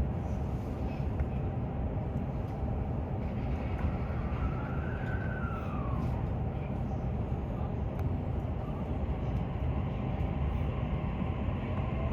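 Inside an E233-3000 series electric train setting off again after an emergency stop: a steady low running rumble, with a brief motor whine that rises and then falls a few seconds in.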